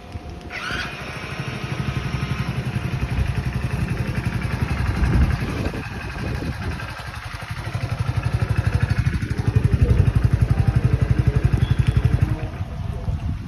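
Hero Splendor Plus motorcycle's single-cylinder four-stroke engine running at idle with a steady pulsing exhaust beat, a little louder for a few seconds in the second half. A short rising chirp sounds just under a second in.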